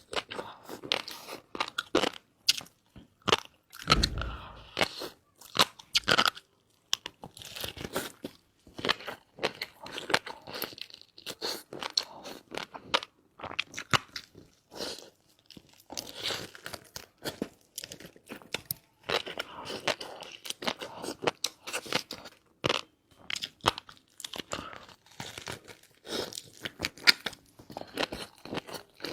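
Close-miked chewing of crunchy food, with irregular crisp crunches and wet crackles one after another. There is a low thump about four seconds in.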